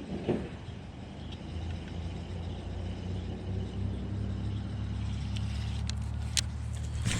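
Steady low engine hum that grows louder over the first couple of seconds, with a short thump just after the start and a few sharp clicks near the end.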